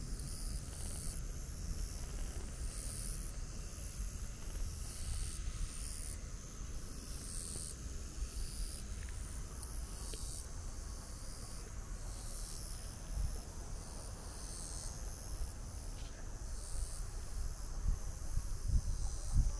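Insects in summer grass trilling in a high-pitched chorus that swells and fades about once a second, over a low rumble of wind on the microphone.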